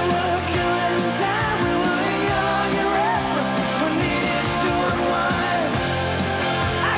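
Rock music with a singing voice over a full band, playing steadily.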